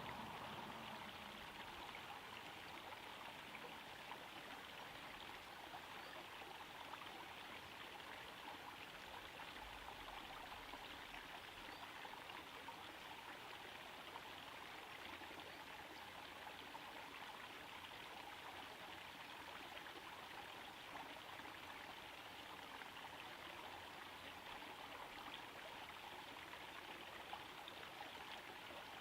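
Small garden pond waterfall trickling steadily into a pond, a soft, even splashing of falling water.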